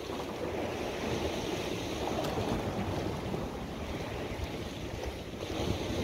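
Sea waves washing against a rocky shore, a steady rushing wash, with wind buffeting the microphone.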